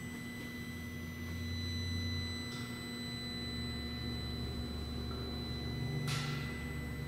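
Steady low hum and rumble of a large machine-shop building, with thin high steady tones over it. Two short hisses come through, a faint one about two and a half seconds in and a stronger one about six seconds in.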